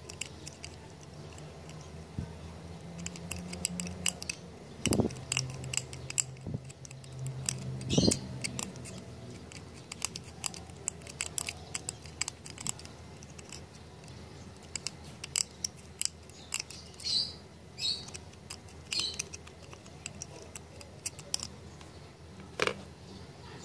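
Metal pick clicking and scraping against the metal casing tabs of a small slide selector switch, prying at it to open the switch for repair: an irregular series of sharp clicks and short scrapes, with two louder knocks about five and eight seconds in.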